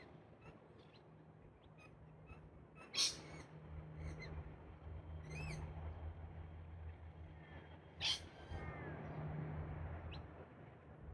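Wild galahs (rose-breasted cockatoos) calling: two short, loud calls about five seconds apart, with fainter bird chirps between them, over a low steady hum.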